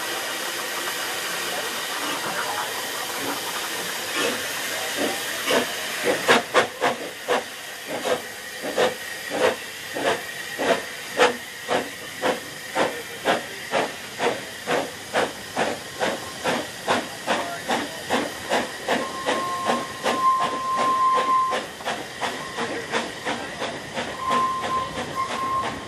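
Narrow-gauge steam locomotive hissing steam, then pulling its train away with evenly spaced exhaust beats that start about six seconds in at roughly two a second. A thin, steady high tone sounds twice in the second half.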